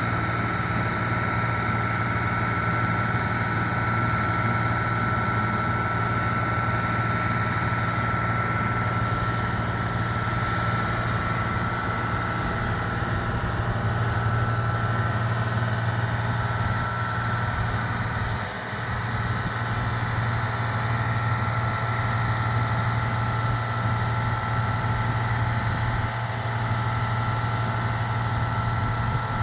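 Aerial ladder fire truck's engine running steadily, driving the ladder's hydraulics as the ladder raises and extends, with a steady high whine over the engine hum.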